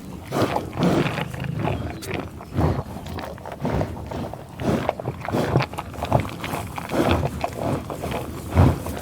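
Cow mooing in a string of short, rough, low calls at irregular intervals, about two a second.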